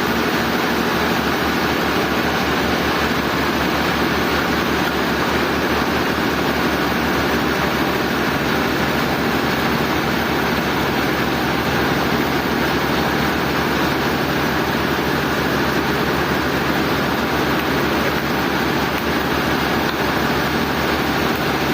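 Sawmill machinery running steadily: a constant, loud engine-like drone with a fast, even low pulsing underneath.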